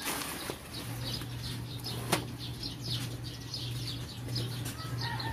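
Small birds chirping, a rapid run of quick descending chirps, over a low steady hum. There is one sharp click a little after two seconds in.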